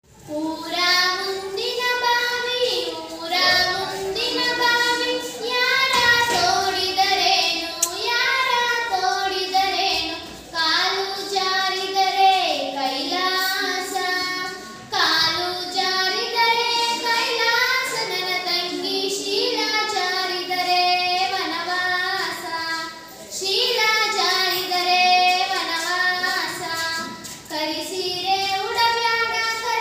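A girl singing a Kannada folk song (janapada geete) solo and unaccompanied, phrase after phrase with short breaks for breath.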